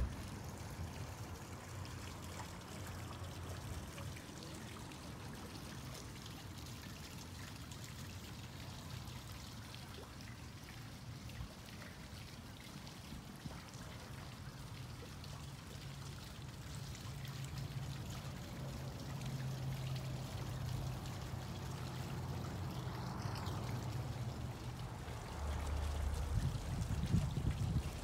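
Water trickling and splashing from a tiered garden fountain, with a low rumble that grows stronger near the end.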